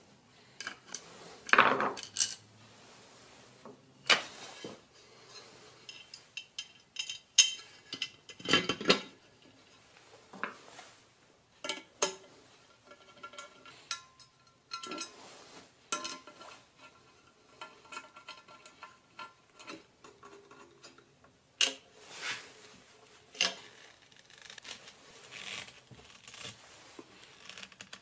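Irregular metal clinks, knocks and scrapes from handling a Bosch router and its base against an aluminium router-table insert plate, some clinks ringing briefly. The loudest clatter comes about two seconds in and again around nine seconds in, and near the end a screwdriver turns the plate's screws.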